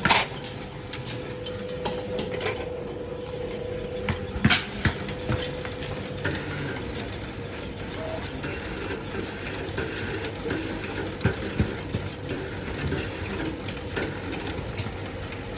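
3-in-1 satay-skewer-making machine running with its chopping blade cutting stock into square strips: a steady machine hum with irregular sharp clacks and knocks, the loudest near the start and about four and a half seconds in.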